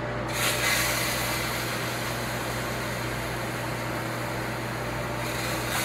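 Ninja Foodi XL Grill's air-crisp fan running steadily with a low electrical hum, its rush of air growing stronger shortly after the start and then holding.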